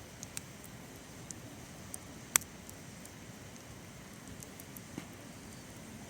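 Wood fire crackling: a steady low hiss with scattered sharp pops, one much louder pop a little over two seconds in.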